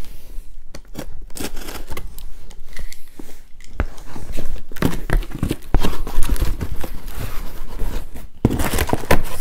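Cardboard shipping box being opened by hand: irregular tearing, scraping and crinkling of cardboard, paper and plastic packing material.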